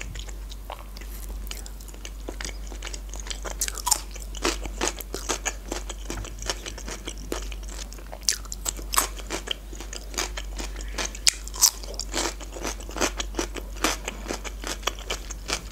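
Close-miked eating sounds: chewing mackerel, then crunching bites and chewing of fresh cucumber slices, a rapid run of crisp, wet crackles.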